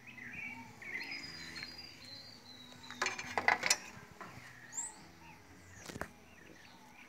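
Birds chirping in short repeated calls in the background. A brief burst of clicking and rustling comes about three seconds in, and a single sharp click near six seconds.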